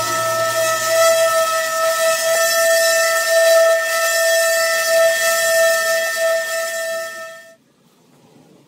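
Random orbital sander on a dust-extraction hose running steadily over a walnut slab top, a high whine with hiss. It cuts off suddenly near the end, leaving only faint background.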